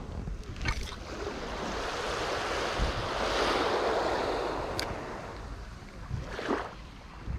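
Small waves washing up on a sandy shore, one swell of surf rising and falling over a few seconds, with wind on the microphone. A few short sharp clicks from the rod and reel as a cast is made.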